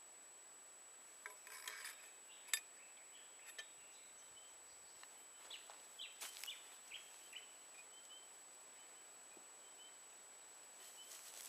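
Quiet outdoor ambience with a few faint clicks and taps, the sharpest about two and a half seconds in, and a handful of short bird chirps in the middle.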